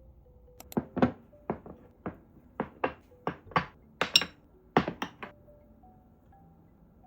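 A quick series of about a dozen sharp knocks and clinks of kitchenware, unevenly spaced over about four and a half seconds, with soft background music underneath.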